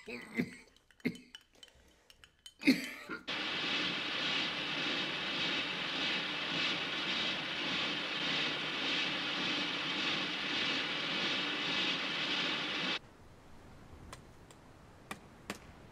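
An old man coughs a few times. Then a loud, steady rushing noise starts abruptly, runs for about ten seconds and cuts off suddenly, leaving faint ambience with a few sharp clicks.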